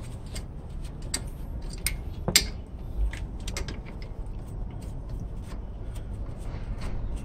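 Scattered light metallic clicks and clinks of a hand clamp tool working on a Hyundai Elantra's front brake caliper as it is tightened to push the caliper piston back, with one sharper click about two seconds in.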